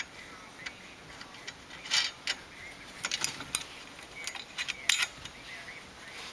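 Small steel hardware (bolt, washers and nut) clinking and rattling against a seat adapter plate and seat track as it is fitted, in a few scattered metallic clicks and jingles, the loudest about two and five seconds in.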